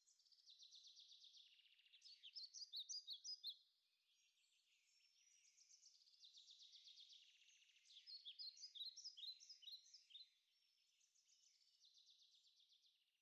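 A songbird singing faintly in repeated song phrases, each a rapid trill that ends in a louder run of quick, separate notes; two full phrases, then a quieter one near the end.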